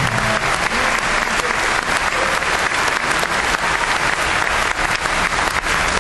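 A large audience applauding: many hands clapping in a dense, steady crackle. Music stops just after the start.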